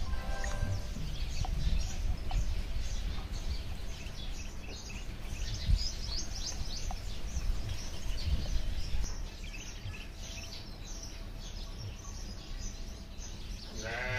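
Small birds chirping busily, over a low rumble. Near the end a cow starts to moo.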